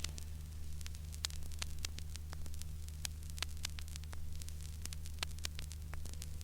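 Vinyl LP surface noise in the silent groove between tracks, played back unprocessed: scattered crackles and sharp pops, several a second, over a steady low hum and faint hiss.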